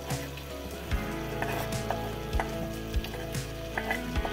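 Vegetables sizzling in a frying pan as chopped parsley is pushed in from a wooden cutting board with a wooden spatula, with a few light knocks, over background music of held notes.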